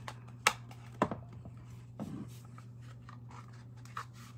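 Sharp clicks and knocks of a Happy Planner disc-bound paper punch being handled and pressed through a planner page, with a duller crunch about two seconds in.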